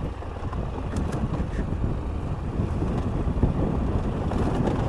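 KTM 890 Adventure R's parallel-twin engine running as the bike rides a rough dirt track, with wind buffeting the microphone. A few short clicks come through, about a second in and again near the end.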